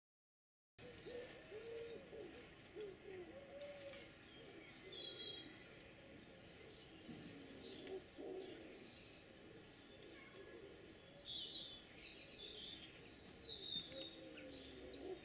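Faint garden birdsong starting about a second in: short high chirps and song phrases from small birds, with lower, slower calls underneath.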